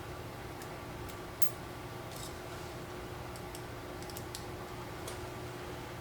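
Scattered light clicks and taps of small metal bolts and washers being handled and tried for fit, about a dozen over the few seconds, over a steady low hum.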